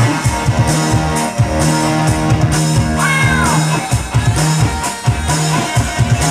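Loud band music with a steady drum beat over a sustained bass line, with a short gliding note about halfway through.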